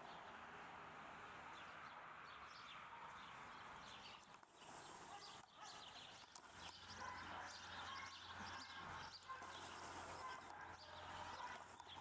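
Faint outdoor ambience: a steady hiss, then from about five seconds in scattered short chirps, rustles and light knocks.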